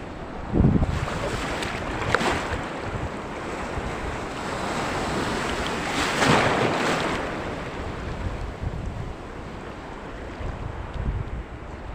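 Sea waves washing in, with wind buffeting the microphone. A gust thumps the mic about half a second in, and the wash of water swells up twice, most strongly around the middle.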